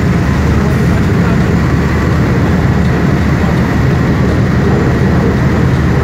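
Car ferry's diesel engines running with a steady, loud low rumble.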